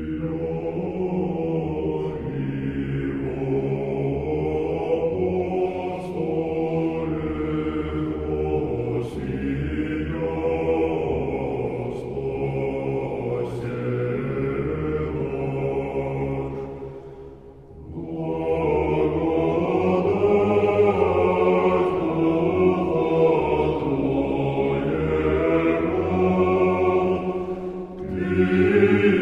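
Choral chant as background music: voices singing long, held phrases in harmony, with a short break between phrases about two thirds of the way through.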